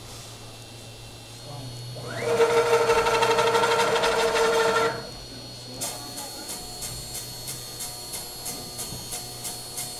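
Homebuilt CNC router's stepper motors whining during a fast move of the spindle carriage, about two to five seconds in. After that the machine moves slowly with a regular ticking, about three ticks a second.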